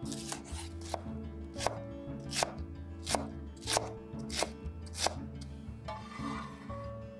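A chef's knife chopping bell pepper on a wooden cutting board: a run of sharp knocks of the blade on the board, about two a second, stopping about five and a half seconds in. Soft background music runs underneath.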